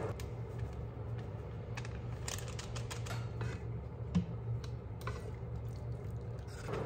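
Scattered light clicks and taps as a plastic zipper bag is handled and a wooden spatula stirs a pot of curry stew, with one louder knock about four seconds in, over a steady low hum.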